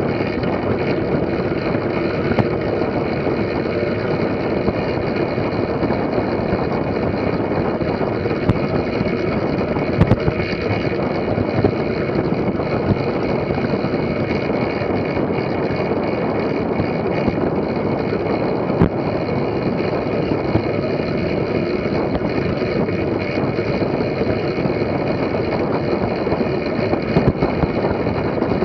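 Steady rush of wind on the microphone and tyre rumble from track bikes running fast on a wooden velodrome surface, with a few light knocks.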